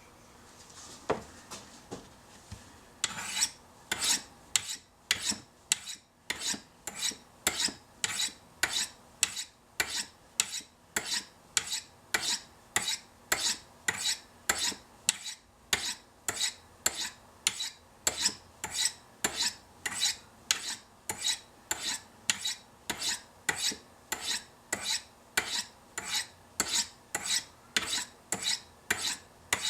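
Chris Reeve Sebenza knife blade stroked down the fine white ceramic rods of a Spyderco Sharpmaker on their angled edge side. Steel scrapes on ceramic in a steady rhythm of about two strokes a second, starting about three seconds in.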